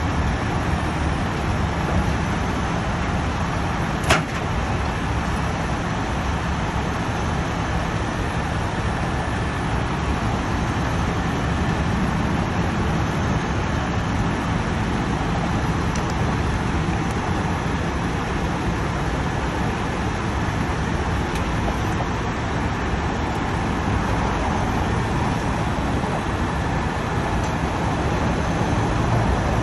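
Heavy rotator tow truck's diesel engine running steadily, working the boom hydraulics while lifting an overturned, loaded concrete mixer. A single sharp click about four seconds in.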